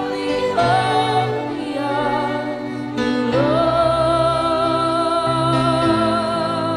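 Worship music: a singer glides up into a long held note about halfway through, over steady instrumental accompaniment.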